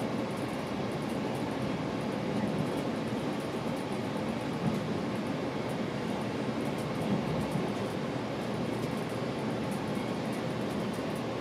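Steady running noise of a GO Transit commuter train, heard from inside a passenger coach as it rolls along the track.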